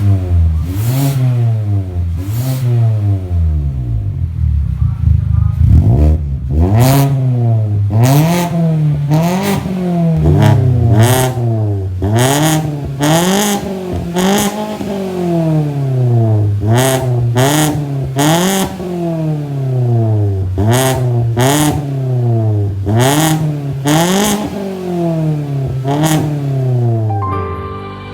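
2021 Mazda 3's four-cylinder petrol engine being revved in repeated quick blips through an aftermarket full exhaust with dual exits, the pitch rising and falling about once a second. Music comes in at the very end.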